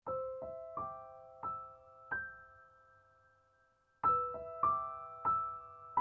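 Background music: slow, gentle piano notes struck one after another and left to ring, with a short pause about three seconds in before a new phrase begins.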